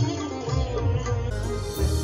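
Instrumental background music: a melody that bends in pitch over a pulsing low beat.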